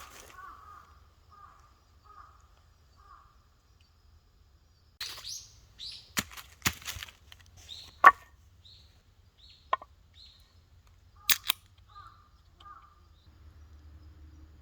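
Short bird calls repeating in woodland, with several sharp cracks or knocks among them, the loudest about eight seconds in.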